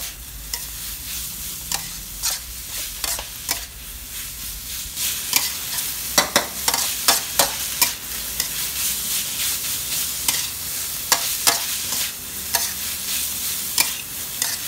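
Metal spatula scraping and clacking against a metal wok as minced pork and bamboo shoot strips are stir-fried dry, over a steady sizzle. The strokes come faster and louder from about five seconds in.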